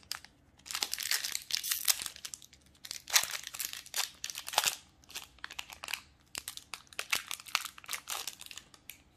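Foil booster-pack wrapper crinkling and crackling as it is handled and torn open, in a rapid run of sharp crackles starting about a second in.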